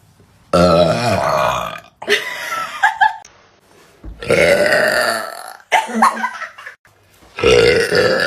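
A person burping loudly: three long burps, about half a second, four seconds and seven and a half seconds in, with shorter sounds between them.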